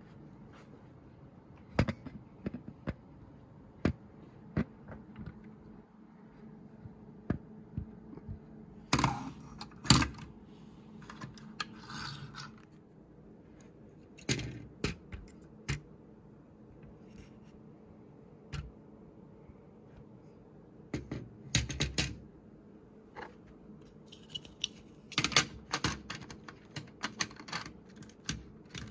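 Plastic Lego bricks clicking, tapping and scraping in irregular bursts as parts of a Lego airliner model are handled, pulled apart and pressed back together.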